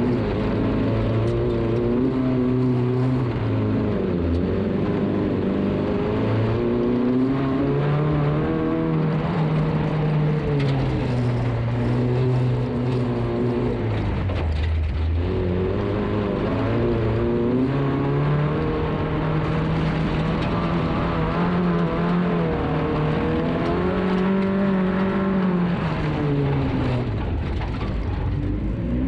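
Race car's engine heard from on board, pulling hard and easing off again and again, its pitch rising and falling as it accelerates and slows. The pitch drops lowest about halfway through before it climbs again.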